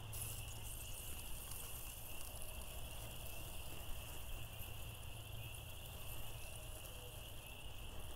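Steady chorus of night insects, a continuous high trill, with a few faint taps as chicken wings are lifted off the grill grate.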